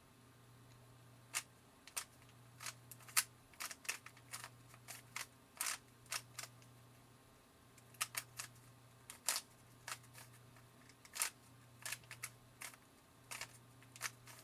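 Plastic clicking and clacking of a stock, unlubricated Rubik's Cube being turned by hand: irregular quick snaps of the layers, often several in a rapid run, then short pauses.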